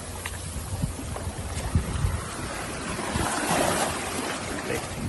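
Wind buffeting the microphone over the wash of sea water, with a low rumble and a few faint knocks.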